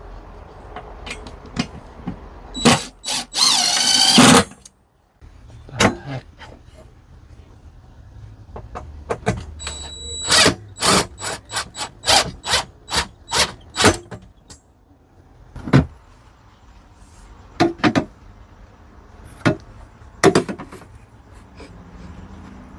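Building work on a van's aluminium bed frame. A power drill runs in a short burst with its pitch shifting. Then comes a run of sharp, ringing knocks at about two a second, with scattered clicks and taps in between.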